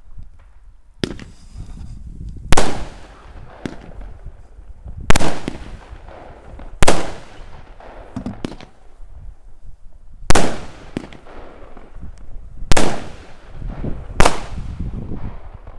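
Small consumer fireworks cake firing its shots into the night sky: about six loud, sharp bangs a couple of seconds apart, with a weaker one about a second in, each bang trailing off.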